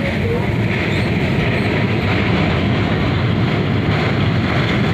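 Indian Railways express passenger train running at speed, heard from an open coach door: a steady, loud running noise of the wheels on the rails, with the rush of air past the coach.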